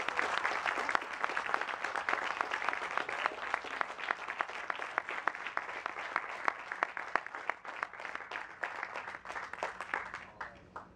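Audience applauding: many hands clapping, gradually thinning out and dying away near the end.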